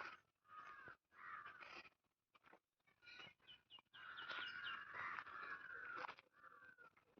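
Crows cawing: a string of short, harsh caws with brief gaps between them, then a longer run of calls from about four to six seconds in.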